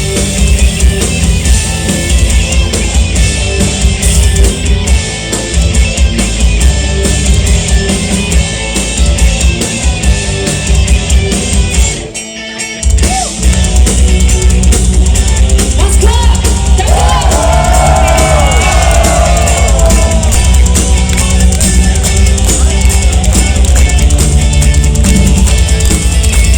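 A rock band playing live: drum kit and guitars in an instrumental passage. The band breaks off for about a second around twelve seconds in, then comes back, and a lead melody with sliding, bent notes enters a few seconds later.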